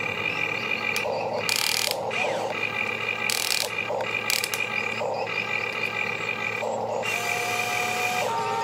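Electric motors of a HUINA RC excavator whining as the boom and bucket are worked, the tone stopping and starting as each move begins and ends, with short hissing bursts as the bucket scrapes through sand. Near the end the whine drops to a lower steady pitch as the loaded boom is raised.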